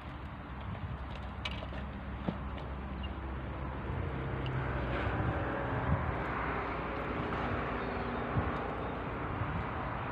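A distant engine drone that grows louder from about four seconds in, over a steady outdoor background hiss.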